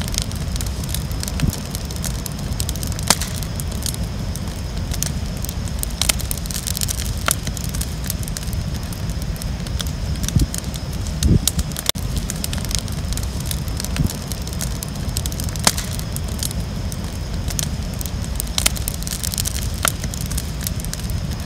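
Open bonfire of old barn boards burning: scattered sharp crackles and pops over a steady low rumble.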